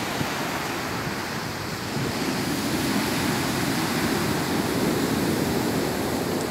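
Surf of a rough sea: large waves breaking and washing up the beach in a steady, unbroken rush.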